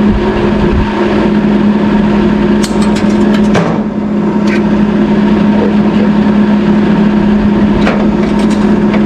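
MIG welder arc running steadily: a loud, constant buzzing crackle over a low hum, with a few sharper pops about three seconds in and again near the end.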